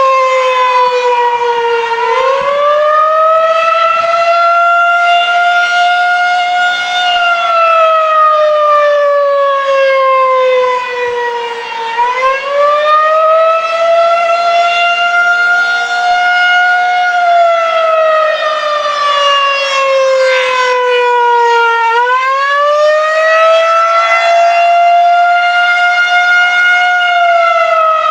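Federal Signal 2001-SRN rotating tornado siren sounding the Attack signal, a loud wail. About every ten seconds its pitch rises quickly, holds high for a few seconds, then slowly falls away.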